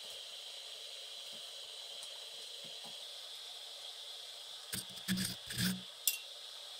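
A few short knocks and rubbing sounds of something being handled, bunched together about five seconds in and followed by a sharp click, over a steady faint hiss.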